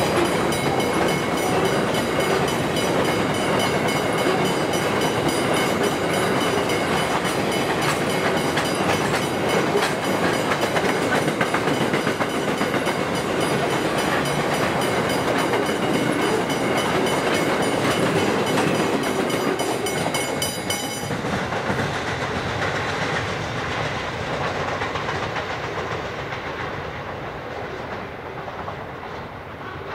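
Freight train of grain hoppers and container wagons running fast through a level crossing, its wheels rolling on the rails, while the crossing's warning bell rings in a fast steady rhythm. The bell cuts off about two-thirds of the way through, and the train sound fades as the last wagons pass.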